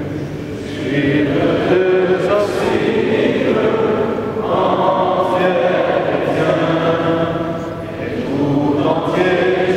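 A choir chanting a slow sung hymn in long held phrases, with brief breaks between phrases near the start and about eight seconds in.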